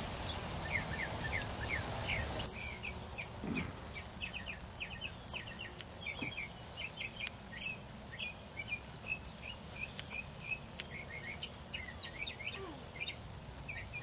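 Large flock of blackbirds calling: many short chattering call notes overlapping, with scattered sharper high notes. A denser rushing noise under the calls drops away about two and a half seconds in.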